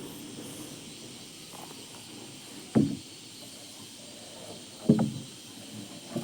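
Stihl chainsaw being pull-started: two short pulls on the starter cord, each a brief loud rattle, about two seconds apart, and the engine does not catch.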